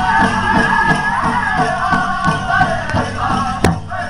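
Powwow drum group singing in high voices over a steady drumbeat of about three strokes a second, with the jingling of dancers' bells. Near the end the song stops on a hard drum stroke.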